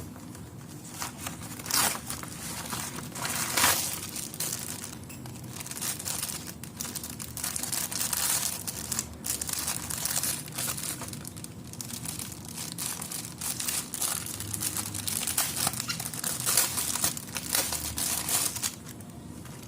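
Plastic packaging crinkling and rustling in irregular bursts as a parcel of face masks is handled and opened by hand; it stops about a second before the end.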